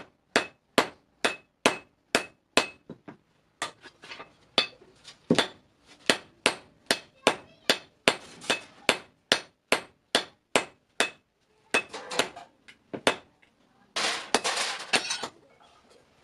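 Hand hammer striking metal on an anvil in a steady rhythm, about two to three blows a second, the first blows ringing with a clear tone. The blows pause briefly about three seconds in, and near the end there is a second-long burst of dense noise.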